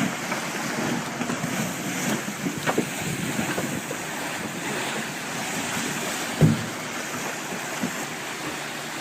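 Wind buffeting the microphone over the rush of sea waves around a moving boat, with one low thump about six and a half seconds in.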